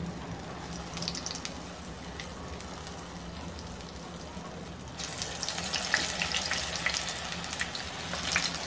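Urad dal batter balls sizzling and bubbling as they deep-fry in hot oil. About five seconds in the sizzling grows louder and more crackly.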